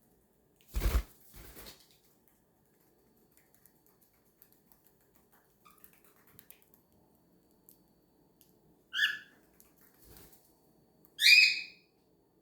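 Cockatiel giving two short whistled chirps near the end, the second louder and higher. About a second in come two brief noisy bumps.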